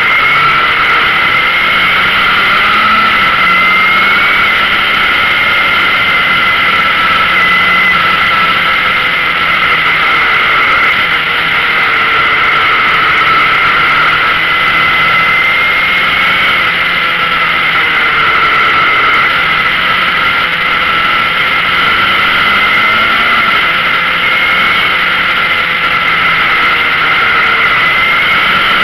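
Yamaha XJR motorcycle's inline-four engine running at a steady cruise, heard on board over a continuous rush of wind. The engine note drifts gently, rising briefly a couple of times.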